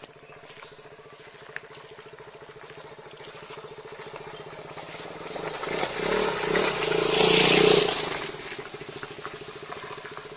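A steady, fast-pulsing chirring from outdoor creatures runs throughout. A vehicle passing swells, peaks about two thirds of the way in, and fades.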